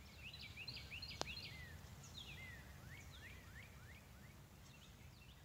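Faint outdoor ambience of small birds chirping: many short rising and falling chirps, thickest in the first couple of seconds. A low steady rumble runs underneath, with one sharp click a little over a second in.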